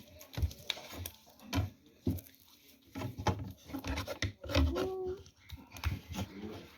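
Homemade slime being kneaded and squeezed by hand: an irregular string of sticky clicks, pops and soft thumps. A short high voice-like sound comes about five seconds in.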